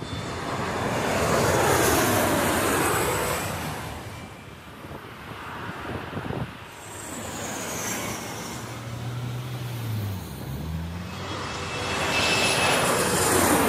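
Jet airliner engines passing low overhead on landing approach, twice: the jet noise swells and fades over the first four seconds or so, and swells again near the end.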